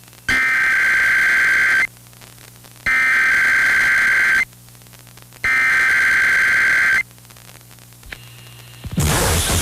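Emergency Alert System SAME header: three identical bursts of two-tone digital data, each about a second and a half long, with about a second's gap between them, signalling the start of an alert. Loud hissy noise comes in just before the end.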